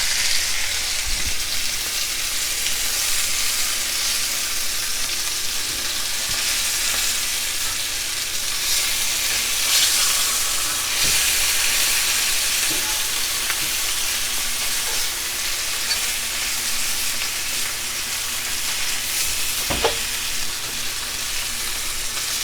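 Flour-dredged chicken pieces frying in oil in a cast-iron skillet: a steady sizzle, with a few light knocks.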